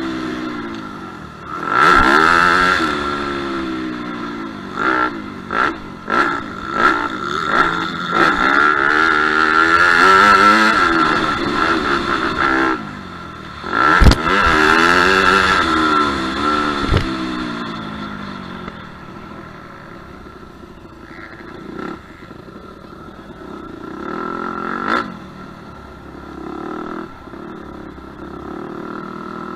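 Dirt bike engine heard from an onboard camera, revving up and down hard through the gears while racing a motocross track, with sharp thuds about 2 and 14 seconds in. From about 18 seconds on the engine drops to a quieter, low-revving run as the bike rolls off the track.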